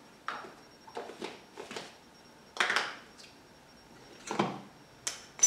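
Scattered light knocks and rustles of things being handled and set down, about eight short sounds with the loudest a little over halfway through and a sharp click near the end.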